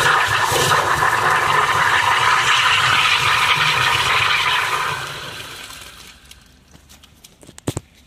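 High-pressure water from a drain jetter hose spraying and splashing back out of an open PVC sewer pipe, fading away about five seconds in. A couple of short knocks near the end.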